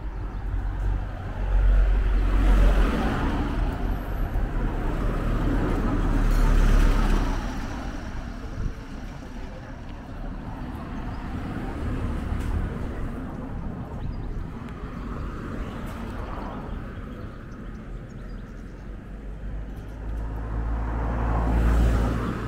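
Cars passing by on a road, several in turn, each swelling with a low engine and tyre rumble and then fading.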